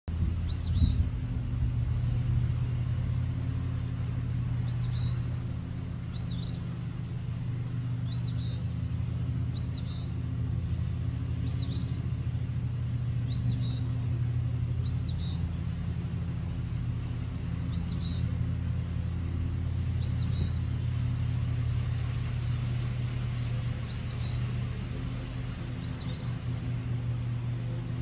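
A small songbird calling repeatedly: about a dozen short, high two-part calls, one every second or two, each a quick rising-and-falling note followed by a brief second note. A steady low rumble runs underneath and is louder than the calls.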